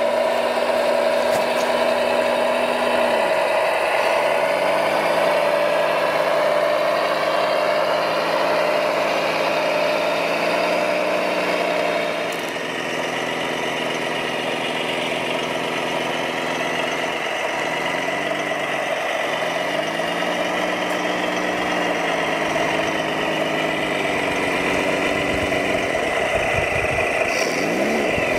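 Radio-controlled scale construction machines running, with a simulated diesel engine note that dips and rises again three times over a steady high whine.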